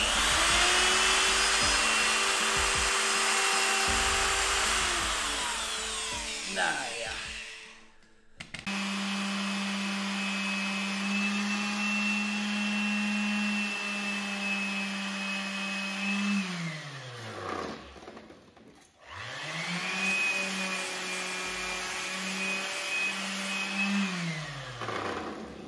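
Handheld electric wood router routing a groove in wood, run three times with short pauses; each run starts up, holds a steady high whine, then winds down in pitch as the motor is switched off. The first run is the loudest.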